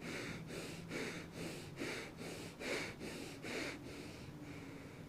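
A person doing bhastrika pranayama, the yogic bellows breath: forceful breaths drawn in and pushed out through the nose in an even rhythm, a little over two strokes a second, stopping about four seconds in.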